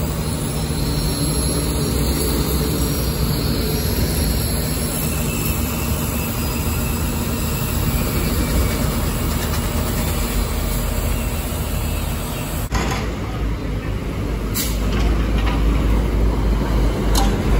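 Diesel engines of a Komatsu excavator working a hydraulic breaker and of heavy trucks, running steadily. About two-thirds through the sound changes abruptly to trucks passing on the road, with a few sharp clicks near the end.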